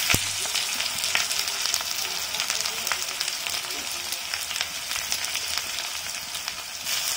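Sliced onions sizzling steadily in hot oil in a kadai, just tipped in, with scattered crackles. A single sharp knock sounds right at the start.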